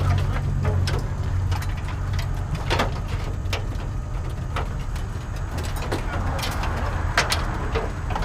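Engine running steadily with a low rumble, under scattered sharp clanks and knocks of scrap metal being handled.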